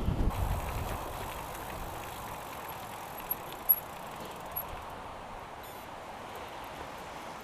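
Bicycle ridden slowly up a tarmac road climb: steady tyre and wind noise on the bike-mounted camera's microphone, with a low rumble at the start and two sharp clicks a little over three seconds in.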